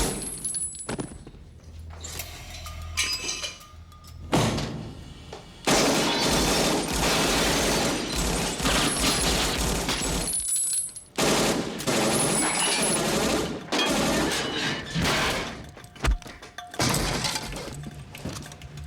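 Automatic gunfire in several long sustained bursts, the longest about five seconds, sprayed into a walk-in refrigerator, with things breaking and shattering.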